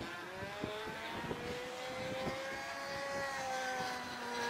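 A radio-controlled model airplane's engine running in flight, a steady buzzing drone whose pitch rises a little early and eases slightly downward near the end.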